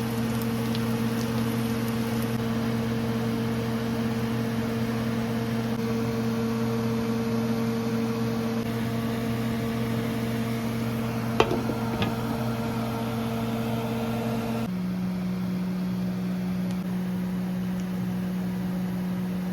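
Steady hum of a kitchen appliance's motor, with two sharp clicks about eleven and twelve seconds in. The hum drops abruptly to a lower pitch near the end.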